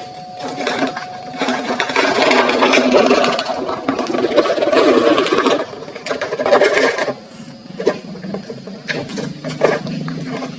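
Small electric motor of a toy truck whirring as it drives, loudest for several seconds, then dying down to quieter scattered plastic clicks about seven seconds in.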